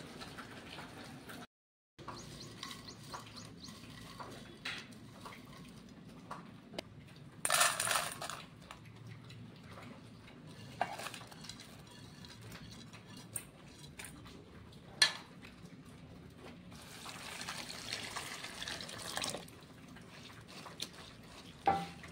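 Handling and washing dried prawns in a steel bowl: scattered knocks and rustles of crockery and prawns against metal, then water splashing and swishing as the prawns are rinsed by hand, with a longer stretch of water noise in the second half.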